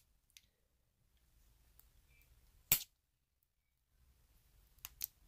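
Medeco 4-pin cam lock cylinder and its key clicking as the key is inserted and worked in the keyway. One sharp click about halfway through, with a couple of lighter clicks near the end.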